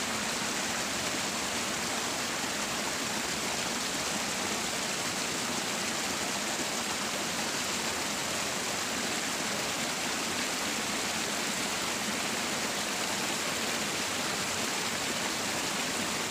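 Steady rush of water running through a small irrigation ditch: an even, unbroken hiss with no pauses.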